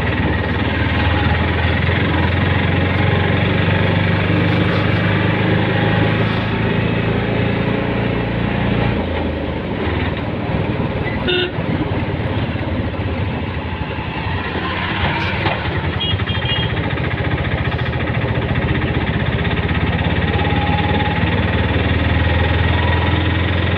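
Small single-cylinder auto-rickshaw engine running as the vehicle drives along, with road and wind noise. The engine note eases off about nine seconds in and picks up again near the end. A short horn beep comes about eleven seconds in.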